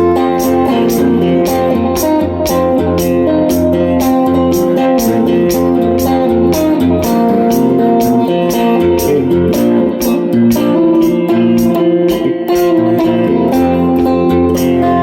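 Improvised guitar music: sustained, layered notes over a steady rhythm of sharp strokes, about three a second.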